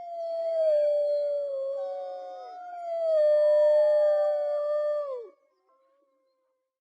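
Several wolves howling together: long, slowly falling howls overlap at different pitches, and the last one drops away steeply about five seconds in.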